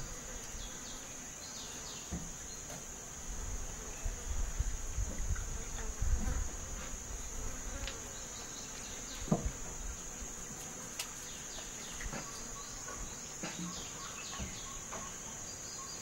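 Insects droning in one steady, unbroken high-pitched tone, with a few soft clicks and low thumps from close by in the first half.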